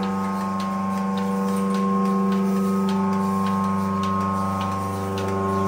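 Milking machine running: a steady hum from the vacuum pump's electric motor, with the bucket milkers' pulsators clicking about once or twice a second.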